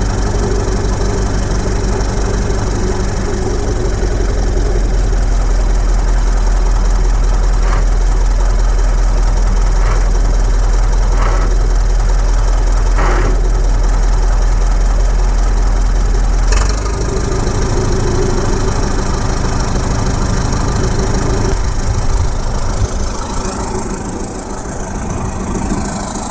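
Caterpillar D7 3T crawler dozer's engine running steadily, with a few short knocks partway through. About 17 seconds in there is a sharp click and the engine note changes.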